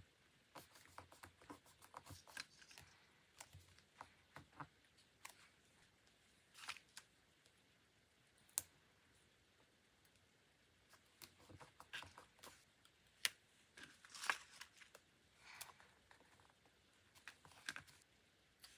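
Quiet desk sounds of paper and stationery being handled: irregular light clicks, taps and short rustles, with a lull about halfway through.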